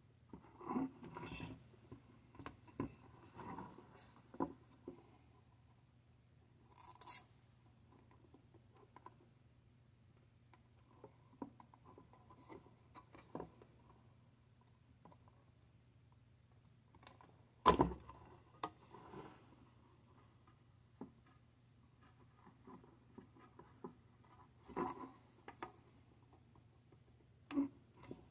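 Soldering relays onto a refrigerator control board: faint scattered taps, scrapes and clicks as the soldering iron tip works the pins and the board is handled, with a short hiss about a quarter of the way in and one sharper click past the middle, over a low steady hum.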